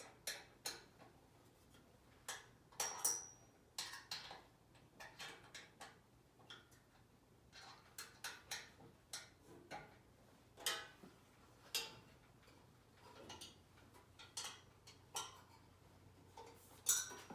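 Irregular clicks and light knocks of metal parts being handled and fitted against a desk's steel frame during assembly, with one brief metallic ring about three seconds in.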